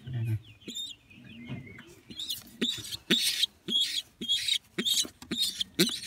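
Young pigeon squab giving a string of short, high squeaks, sparse at first and then about two a second from about two seconds in, while it is being stroked.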